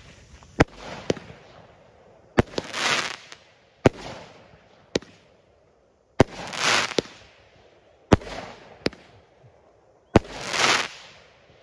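Fireworks set off on the ground: a string of sharp bangs at irregular intervals, several of them followed by a fizzing hiss that lasts under a second.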